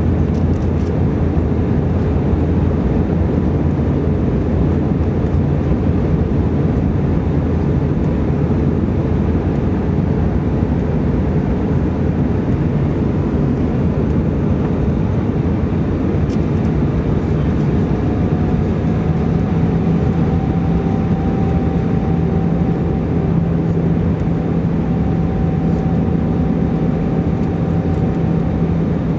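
Airbus A319 jet cabin noise in flight, heard from a window seat over the wing: a steady low rush of engine noise and airflow. About two-thirds of the way through, a steady low hum and a faint higher whine come in and hold.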